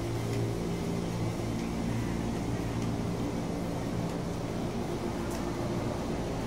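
Steady low hum of a stationary KRL electric commuter train standing at the platform with its doors open and its onboard equipment running.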